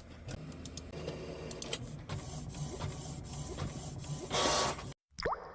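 3D pen's filament-feed motor running steadily, with small clicks. Near the end comes a brief loud hiss; then the sound cuts off and a short falling tone fades out.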